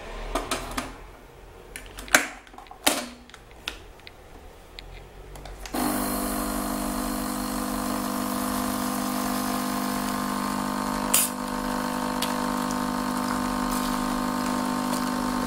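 A few separate clicks and knocks as a Nescafé Dolce Gusto capsule coffee machine is handled and a mug set under the spout, then about six seconds in the machine's pump starts with a steady mechanical hum as coffee brews into the mug, with one sharper click partway through.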